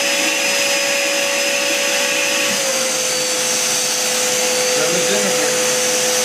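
Upright vacuum cleaner running steadily through its hose, used to suck a girl's hair together into a ponytail. Its hum steps slightly lower in pitch about two and a half seconds in.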